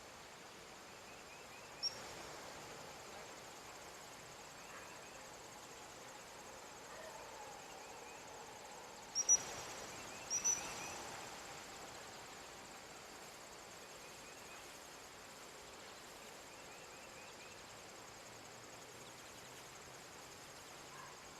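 Faint, steady chorus of crickets and other insects in an open field. A few short, sharp high chirps stand out over it, once about two seconds in and in two quick pairs around the middle.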